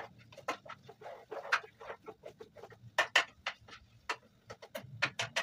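A spoon stirring and scraping in a cooking pot: a run of irregular short clicks and scrapes, several a second.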